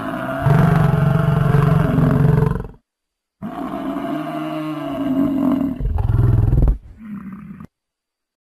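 Bison bellowing: two long, deep calls, the first about three seconds long and the second about four, with a short pause between them.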